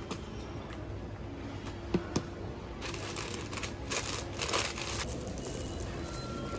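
Wrapping paper rustling and crinkling as a flower bouquet is wrapped by hand, with two quick knocks about two seconds in and the loudest rustling between about three and five seconds.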